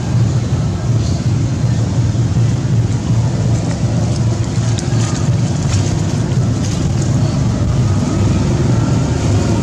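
Steady low rumbling noise with no clear pitch, unchanged throughout, with a few faint high ticks about halfway through.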